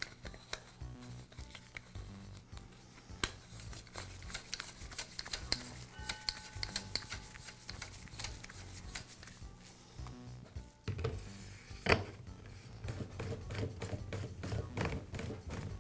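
Light metallic clicks, ticks and rubbing as the metal barrel tube of a Milwaukee cordless grease gun is handled and screwed back onto the gun head, with one sharper knock about three-quarters of the way through.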